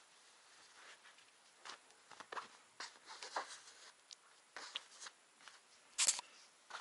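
Soft, scattered rustling and brushing of cotton baby clothes being handled and smoothed flat by hand, with a louder brief rustle about six seconds in.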